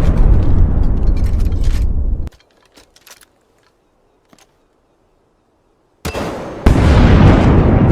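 Loud, dense rumbling noise that cuts off suddenly about two seconds in; near silence with a few faint clicks follows, then another loud rumble starts about six seconds in and grows louder soon after.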